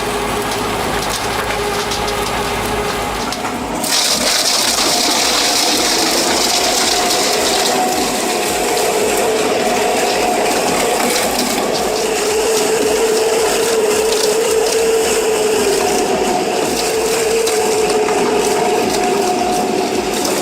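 Stump-grinding machine running under load, its engine drone wavering in pitch while it chews tree stumps into wood chips. About four seconds in, a harsher, louder grinding and crunching of wood joins the engine.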